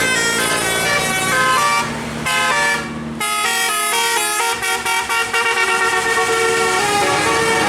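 Bus basuri (telolet) musical horn playing a fast multi-note tune, its notes changing several times a second. The horn goes softer briefly about two seconds in, and a run of short choppy toots follows around the middle.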